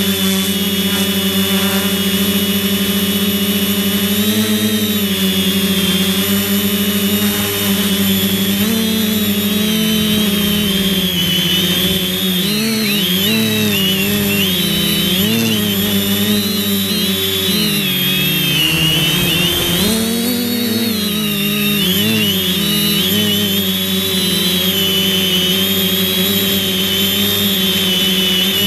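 Quadcopter's brushless electric motors and propellers whining, heard from on board. The pitch is steady at first, then wavers up and down over the middle stretch as the throttle changes.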